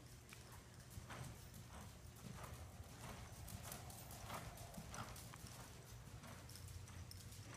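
Faint, rhythmic hoofbeats of a ridden horse moving over sand footing.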